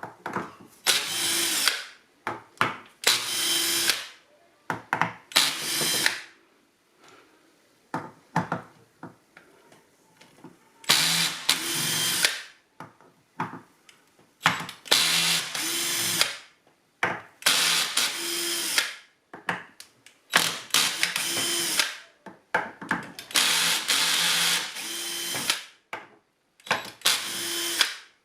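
Cordless power driver running in short bursts of one to two seconds, about nine times, unscrewing the fasteners of an automatic transmission valve body, with small clicks and knocks of tools and parts between the runs.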